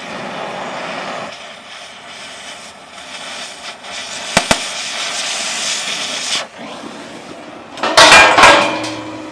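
Oxy-acetylene cutting torch hissing as it cuts through a steel pipe rail, with two sharp clicks in the middle of the cut; the hiss stops abruptly at about six and a half seconds. About eight seconds in, loud ringing clangs of steel pipe as the cut rail is knocked loose.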